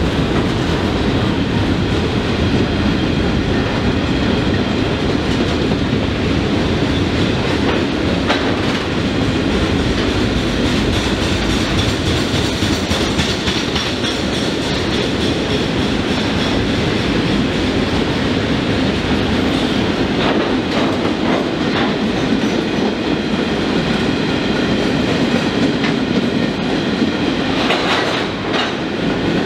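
Freight train of container flat wagons rolling past: a steady rumble of wheels on rail, with clickety-clack at the rail joints. It eases briefly as the last wagon goes by near the end.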